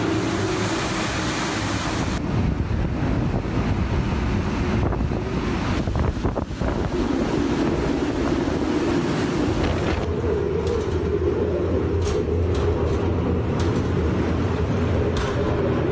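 Typhoon wind buffeting the microphone: a loud, steady rushing noise with a deep rumble, changing abruptly about two seconds in and again near ten seconds, with a few short clicks in the last few seconds.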